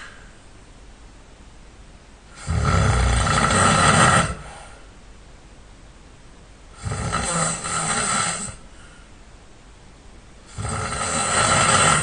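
A person snoring loud and hard in sleep: three snores about four seconds apart, each lasting about two seconds, with quiet between them.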